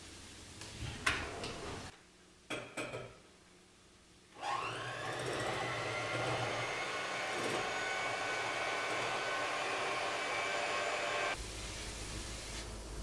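Electric hand mixer starting up about four seconds in, its motor whirring steadily with the beaters in a bowl, then switched off near the end. A few short clicks come before it.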